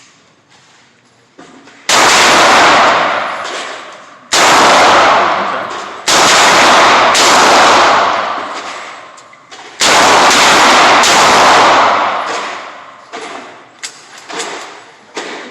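Loud gunshots fired one at a time at a shooting range, several of them spaced one to three seconds apart, each followed by a long echoing decay.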